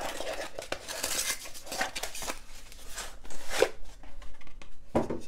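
Cardboard battery box being opened by hand: flaps rustling and scraping as a 12 V battery and its packing insert are slid out, with a couple of sharper knocks in the second half.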